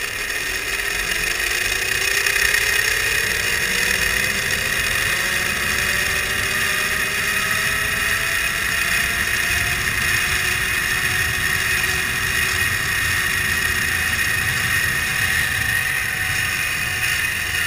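Zipline trolley pulleys running along the steel cable during a descent, a whirring whine that climbs slowly in pitch for about the first ten seconds as the rider gathers speed and then holds steady, with wind rushing over the microphone.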